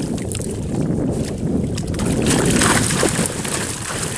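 Water splashing and dripping off a cast net as it is hauled hand over hand out of the river with fish in it, over a steady low rumble of wind on the microphone.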